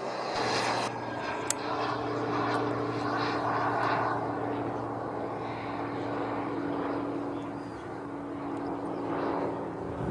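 Radio-controlled model jet running, a steady hum under a rushing noise that swells and fades and swells again near the end. One sharp click about a second and a half in.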